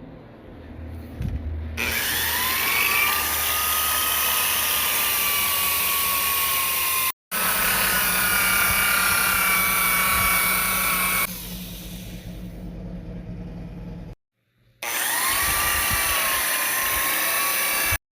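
A power tool running in three runs, each starting with a whine that rises in pitch as the motor spins up, and each cut off abruptly.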